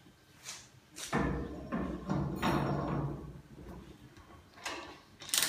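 Metal knocks and scraping as a steel PanelMill-PF cladding-removal machine is slid onto a boiler tube and set in place, with its drive motor not running. A knock about a second in, a rough sliding rattle for about two seconds, then two sharper knocks near the end.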